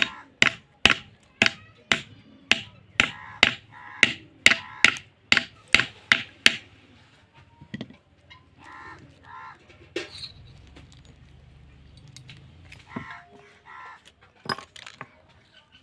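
Light hammer taps driving a new bearing onto a ceiling fan's shaft: about fourteen even blows, roughly two a second, stopping after about six and a half seconds. A crow caws a few times in the background after the tapping stops.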